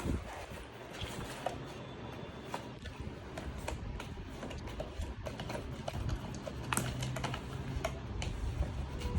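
Handling noise of a toy remote-control car's parts being worked open by hand: scattered light plastic clicks and knocks with rustling.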